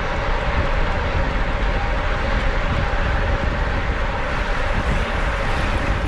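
Steady wind rush over the microphone and road noise from a racing bicycle riding at speed, with a steady hum running under it.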